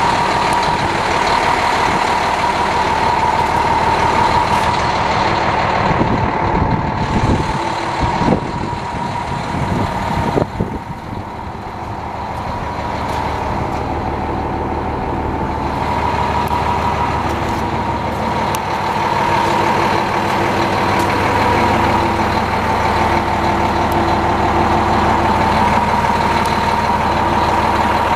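Diesel engine of a 2008 International 7600 plow truck idling steadily, with a high steady whine over the rumble and a few knocks about a third of the way in.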